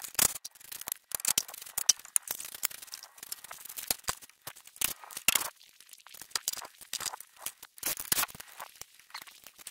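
Irregular clicks, light knocks and crunches from someone moving on gravel and handling loose car parts by hand, with no motor or power tool running.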